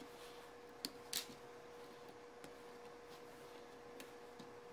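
A few light clicks of plastic K'nex pieces being handled, the two sharpest close together about a second in, over a faint steady hum.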